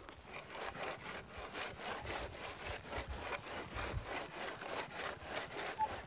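A wooden screed board is worked back and forth in a sawing motion across the tops of wooden forms, scraping through gravel and rubbing on the form boards in quick, repeated strokes. This is the gravel subgrade being screeded level, with high spots pushed into the lows.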